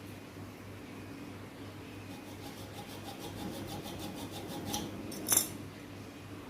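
Small metal tools being handled during refrigerator repair work: a run of fast light ticks, about five a second, then one sharp metallic click a little after five seconds in, over a low steady hum.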